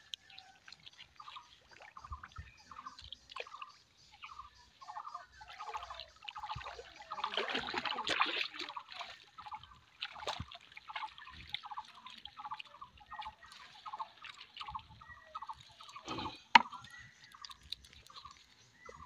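Water splashing and dripping as a wet cast net is hauled out of a pond and laid on the bank, with a louder rush of water about seven seconds in. A single sharp knock sounds near the end.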